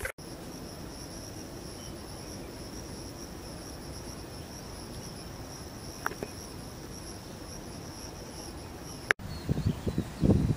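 A steady, high-pitched drone of insects singing in woodland, unbroken for about nine seconds. It then cuts off and is replaced by loud gusts of wind buffeting the microphone.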